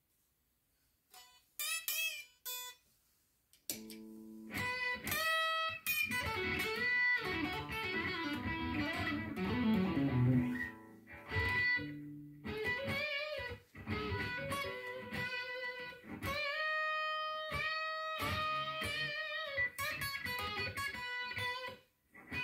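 Electric guitar, a Les Paul-style solid-body, played as single-note blues lead lines with string bends. After about a second of silence come a few picked notes, then a fast descending run in the middle and longer sustained, bent notes toward the end.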